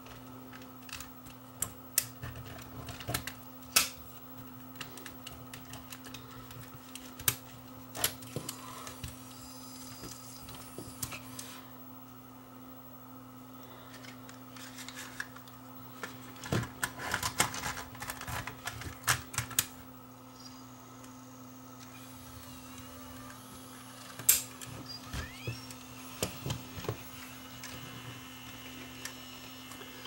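Scattered clicks and taps from a Sony DCR-TRV340 Digital8 camcorder being worked by hand just after powering up, its buttons and mechanism operated; the clicking is thickest a little past the middle. A steady low hum runs underneath.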